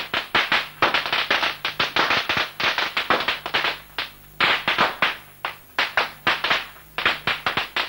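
A string of firecrackers going off: sharp cracks in quick, irregular succession, several a second, over a faint steady low hum.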